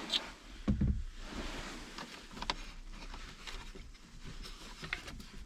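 Scattered plastic clicks and knocks as a Ford F150's dash-mounted 4x4 selector switch is worked and pried by hand in its trim panel, with a heavier bump a little under a second in.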